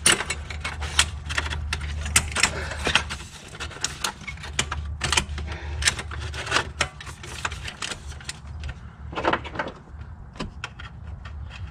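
Irregular metallic clinks and knocks of tools and exhaust parts being worked into place, over a steady low hum.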